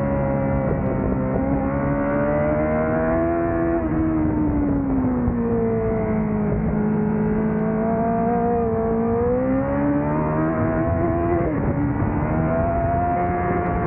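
Honda CBR1000RR-R Fireblade's inline-four engine under hard track riding, its pitch climbing, falling and climbing again as the throttle opens and closes through the corners, with a brief sharp dip about eleven seconds in before it pulls up again.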